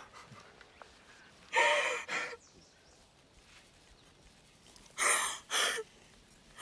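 A person's voice making two short breathy sounds, about a second and a half in and again about five seconds in, with quiet room tone between them.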